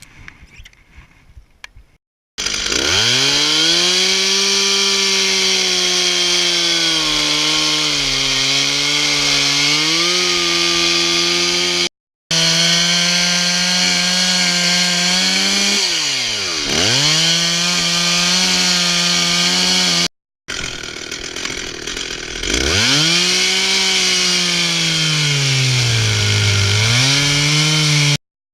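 Stihl two-stroke chainsaw running at high revs, cutting into a spruce trunk. The engine note sags under load several times and drops almost to idle once mid-way before revving back up, breaking off abruptly between segments.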